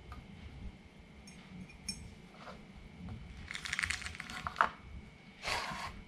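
Small pet bulbul's claws and beak clinking on the rim of a glass mug: a cluster of quick clicks a little past halfway, then a short rustle near the end.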